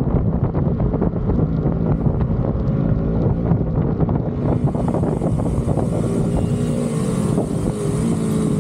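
Motorcycle engine running at steady revs while riding, with wind noise on the microphone.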